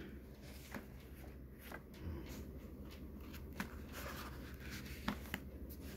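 Pages of a thick book being turned by hand: faint paper rustling with a few short, soft flicks of the leaves.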